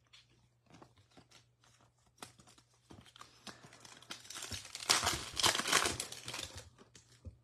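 Foil wrapper of a Topps Chrome baseball card pack crinkling and tearing as it is opened by hand. Light scattered crackles at first, then louder, denser crinkling and tearing for a couple of seconds in the second half.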